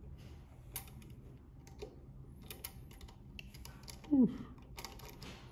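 Small metal parts clicking and tapping as a sewing machine's bobbin and bobbin case are handled by hand, in scattered light clicks. About four seconds in, a brief louder sound falls in pitch.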